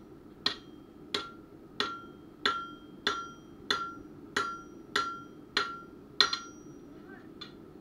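Hand hammer striking a billhook blade held on the anvil horn in a steady rhythm of about one and a half blows a second, each blow ringing briefly. About ten blows, the last the loudest, then one light tap near the end.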